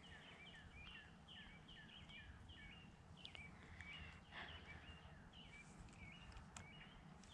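Faint bird chirping: a steady run of short, high notes with a falling tail, about two to three a second.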